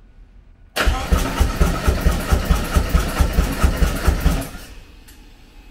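Harley-Davidson Road Glide ST's Milwaukee-Eight 117 V-twin cranking on the starter for about four seconds, an even chugging of about five pulses a second, turning over but not firing. After a Stage 2 cam install, the owner suspects the valves (pushrod adjustment) are not set right.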